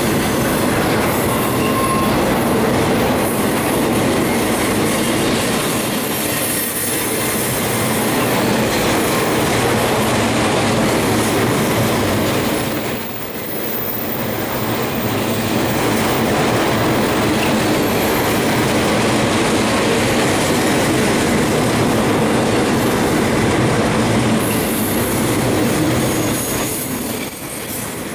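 Empty intermodal freight cars of a Union Pacific train rolling past close by: a steady, loud rolling and rattling of steel wheels on rail.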